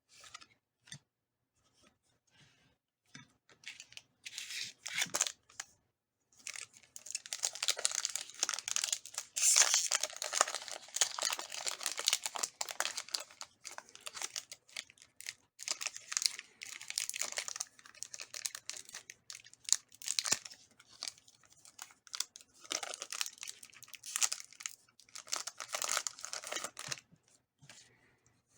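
Foil wrapper of a Pokémon TCG booster pack being torn open and crinkled, in several bouts of crackling with short pauses between them. A few faint ticks come before the tearing starts.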